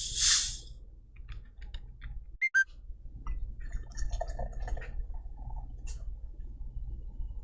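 Carbonated soda opened with a short, loud fizzing hiss, followed by a few sharp clicks about two and a half seconds in and quiet handling and liquid sounds.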